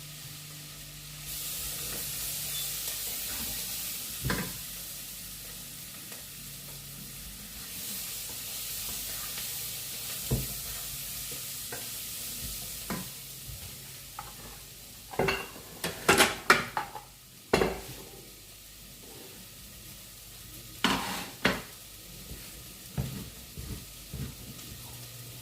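Food sizzling in a hot frying pan, the hiss starting about a second in, while a utensil stirs it and knocks and scrapes against the pan in a burst of clatter about two-thirds through and again a few seconds later.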